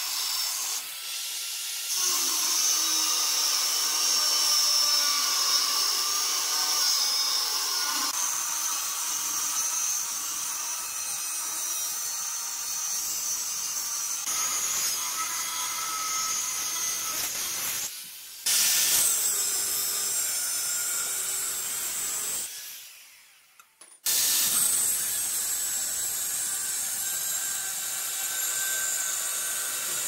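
Handheld angle grinder with a cut-off disc cutting through flat steel bar stock: a steady high whine with the rasp of the disc biting the metal, cutting out a knife blade's outline. The sound breaks off briefly twice, once fading almost to silence about three-quarters of the way through.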